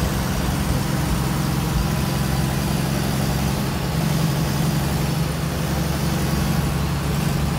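Bus engine running with a steady low drone, heard from inside the passenger cabin, with a faint high whine above it.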